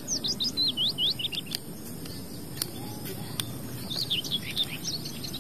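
A small bird chirping in quick runs of short, high, downward-sliding notes: one run at the start lasting about a second and a half, another about four seconds in. A few light clicks fall between the runs.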